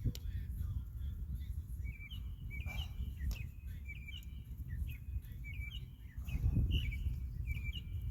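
A bird chirping in a steady series of short, high chirps, two or three a second, over a low background rumble. A click at the start and a louder rustle about six and a half seconds in.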